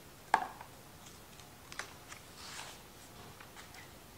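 Hardcover library book being handled and its cover and endpapers turned by hand on a tabletop. There is a sharp tap just after the start, then light clicks and a brief soft page rustle a little past two seconds.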